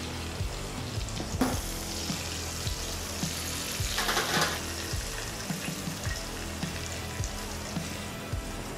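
Butter and oil sizzling in a stainless steel frying pan, with garlic and rosemary, just after basting a tomahawk steak. The sizzle brightens about a second and a half in and is loudest around four seconds in.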